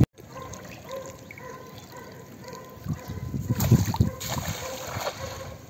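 Water trickling and splashing, with a few louder splashes between about three and four seconds in.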